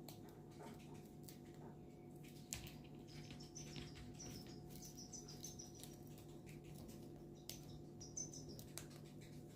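Faint, soft chirping from a pearl cockatiel in two short spells, with scattered light clicks and taps over a low steady hum.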